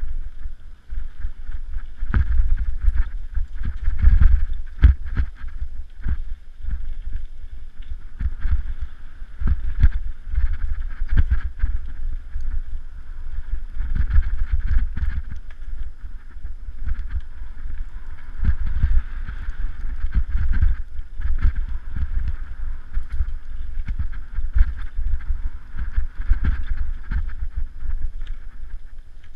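Mountain bike riding over a dirt singletrack: wind buffeting the microphone and a steady low rumble from the tyres on the trail, broken by frequent knocks and rattles as the bike jolts over bumps and roots.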